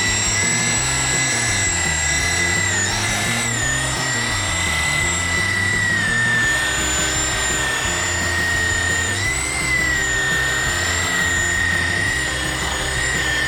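Drillmaster 7-inch variable-speed rotary polisher whining steadily while buffing Finesse-It finishing glaze into fiberglass gelcoat. Its pitch dips briefly about three seconds in and again around nine or ten seconds, as the pad bears down under load. Background music with a bass line plays underneath.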